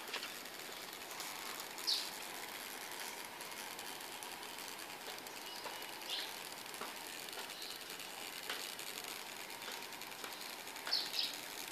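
Steady background hiss with a few brief, high chirps of a small bird, one every few seconds and two in quick succession near the end.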